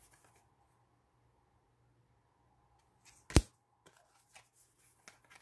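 Trading cards handled in the hands: one sharp snap a little over three seconds in, then a few light clicks as the cards are moved through.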